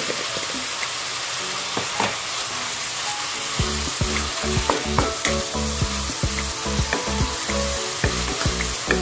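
Kangkong (water spinach) sizzling in oyster sauce in a hot non-stick wok, stirred and tossed with a wooden spatula. A steady frying hiss runs under frequent light knocks and scrapes of the spatula.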